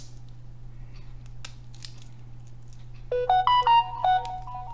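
Faint clicks of crab shell being picked apart by hand over a steady low hum. About three seconds in, a short electronic tune of quick notes stepping up and down, the loudest sound, plays for about a second and a half.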